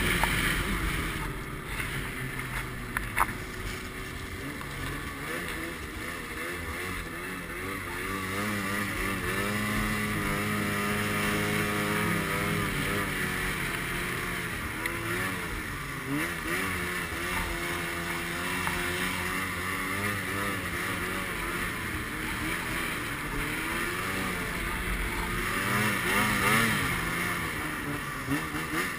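Arctic Cat M8 snowmobile's two-stroke engine running under the rider, heard from a helmet camera, its pitch rising and falling as the throttle is worked.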